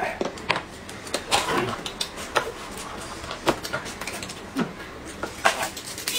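Eating and drinking sounds: sipping, chewing and swallowing, with scattered short clicks and taps.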